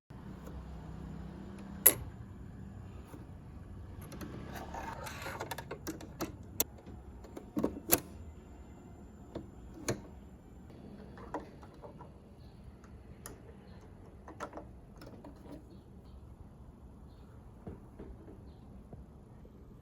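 A Janome J-885 sewing machine being handled, giving sporadic sharp clicks and knocks from its parts. A low hum runs through the first two or three seconds.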